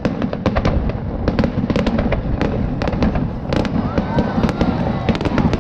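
Fireworks display: aerial shells bursting in a rapid, dense barrage, many sharp bangs and crackles every second over a continuous low rumble.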